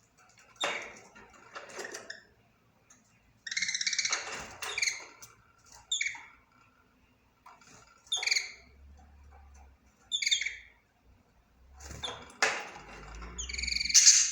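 Budgerigar chirping and chattering: short, sharp chirps every couple of seconds mixed with scratchy warbling bursts, the loudest chirp near the end.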